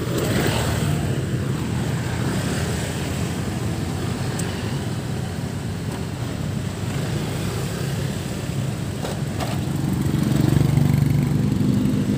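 Road traffic going by: small motorcycle engines passing, swelling louder as one comes close near the end.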